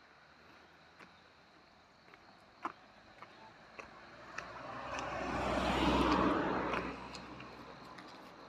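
A vehicle passing by: a broad rumble swells over about two seconds, is loudest about six seconds in, and fades away.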